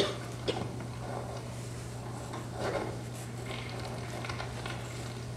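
Quiet auditorium room tone: a steady low hum with faint, scattered rustles and small noises from the seated audience, the clearest a brief knock about half a second in.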